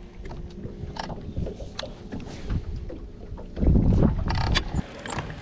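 Wind buffeting the microphone on an open bass boat, with a strong gust a little past halfway and a faint steady hum fading out in the first half. A few light clicks come from handling the fishing gear.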